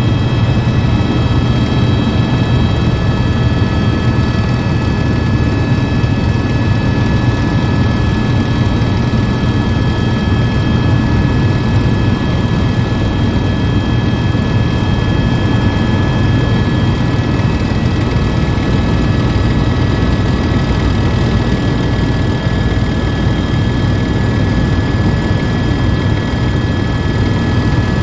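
Tour helicopter in flight, heard from inside the cabin: a loud, steady drone of rotor and turbine engine with a few thin, steady high whines over it.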